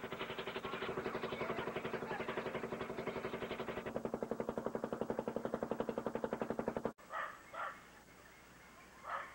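A boat's engine running with a fast, steady chug, which cuts off suddenly about seven seconds in. A dog then barks twice.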